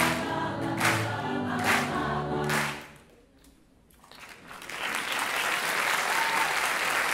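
Mixed choir with a small acoustic band ending a song on a steady beat; the music stops about three seconds in, and after a moment of near quiet the audience breaks into applause.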